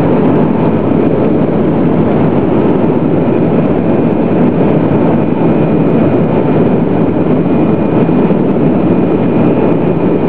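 Boeing 737 cabin noise on final approach with flaps extended: the engines and the rush of air over the wing make a loud, steady noise, with a faint steady whine on top.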